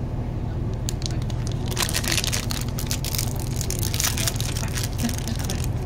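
Plastic-film protein bar wrapper crinkling and tearing as it is opened by hand, starting about two seconds in, over the steady low rumble of a moving train.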